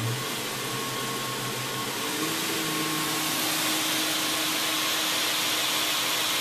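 A 2x72 belt grinder runs in reverse, its motor powered by a KBAC-27 variable-speed drive, with the sanding belt hissing steadily. About two seconds in, while the drive's speed knob is being turned, the motor's note changes and the sound grows a little louder.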